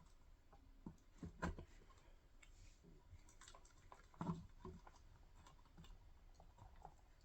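Near silence with a few faint clicks and taps, the clearest about a second and a half in and again just past four seconds.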